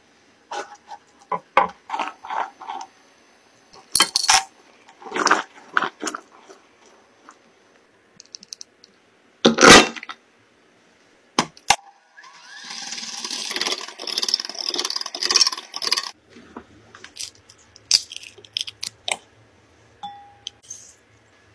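Kitchen clinks and taps of glass and ceramic bowls and utensils, one loudest clink about ten seconds in, with a few seconds of continuous noise a little past the middle.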